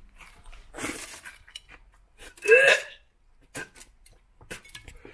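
A man gagging and retching at a revolting taste: a rough, noisy heave about a second in and a loud voiced retch about two and a half seconds in, followed by a few short sharp sounds near the end.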